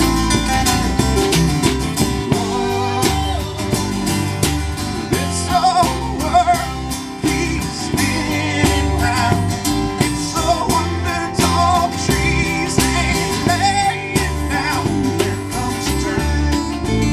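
Live country-blues band playing: strummed acoustic guitar, resonator guitar, plucked upright bass and drum kit keeping a steady beat. A man's voice comes in singing about five seconds in.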